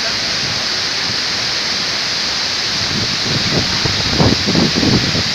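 Waterfall pouring down heavily, a steady loud rush of water. A few irregular low rumbles break in over it for a couple of seconds near the end.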